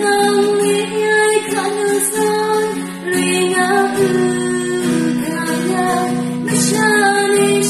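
A woman singing a slow song in long held notes, accompanied by an acoustic guitar.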